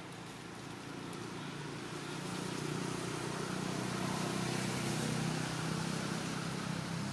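Motor vehicle engine running with a steady low hum, growing louder over the first few seconds and then holding, as of a vehicle approaching.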